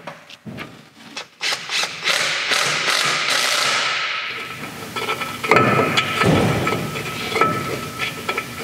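Hand-tool work in a shop: a run of sharp knocks and clatters, then from about five seconds in a busier stretch of rapid knocking over a thin steady ringing tone.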